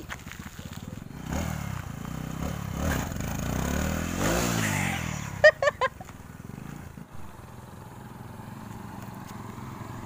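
A small motorcycle engine running and passing close by, loudest about four seconds in, then fading as it moves off down the road. About five and a half seconds in, a quick run of about five short, high chirps.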